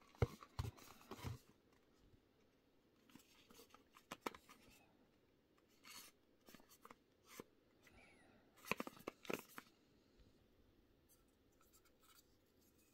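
Hands handling small cardboard cosmetic boxes and a plastic jar: quiet, scattered taps, clicks and rustles in several short bursts, the busiest just after the start and about nine seconds in.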